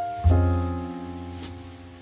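Instrumental intro music: held chords, with a new chord and a deep bass note coming in about a quarter second in and slowly fading.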